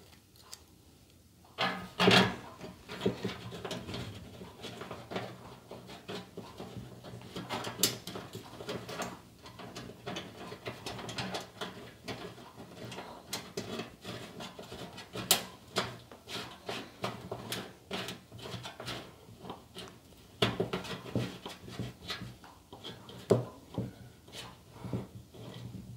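Irregular small clicks, taps and scrapes of a panel-mount fuse holder being worked into a hole in a sheet-metal UPS cabinet panel and its nut turned tight by hand, starting about two seconds in.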